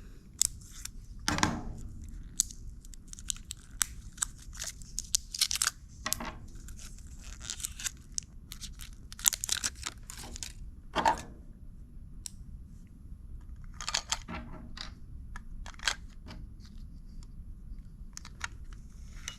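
A battery pack's packaging being torn open and handled: irregular tearing and crinkling with scattered sharp clicks and a few louder knocks.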